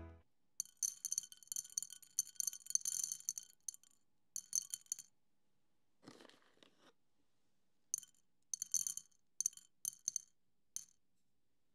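Light metallic or glassy clinking and jingling in several short runs, with a softer rustle about six seconds in.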